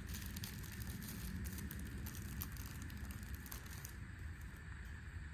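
Crinkling and rustling of parts packaging being handled, with many small clicks and crackles that die down about four seconds in, over a low steady background rumble.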